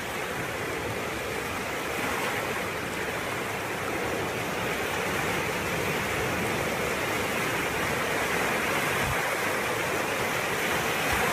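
Muddy flash-flood torrent rushing past in a steady, loud wash of water noise that grows slightly louder as it goes.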